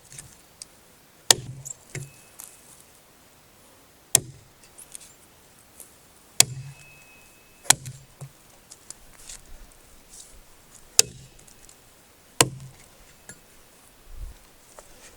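A 50-year-old Soviet axe chopping into a log: about seven sharp blows, one to three seconds apart, a couple of them leaving a brief ring.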